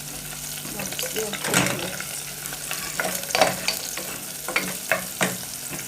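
Pre-boiled beans sizzling as they fry in a pan, with a steady hiss and several scraping strokes as they are stirred.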